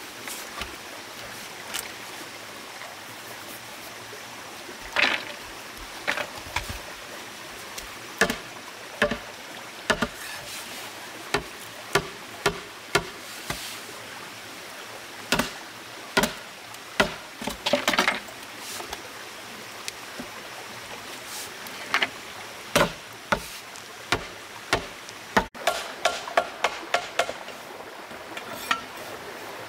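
Irregular sharp knocks and taps, one every second or two with quick clusters, over a steady rushing background like flowing water.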